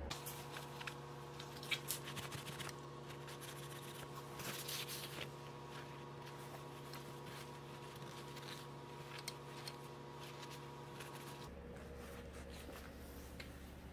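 Blue paper shop towel rustling and scraping as it wipes cleaner off a dirty intake manifold runner valve, with scattered small clicks from the part being handled. A sharp click comes about two seconds in.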